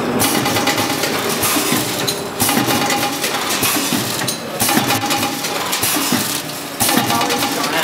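A 10-head micro multihead weigher and vertical form-fill-seal sachet packing machine running, with dense clinking and clattering of its working parts. The clatter eases briefly about every two seconds and then picks up again, in a steady repeating cycle.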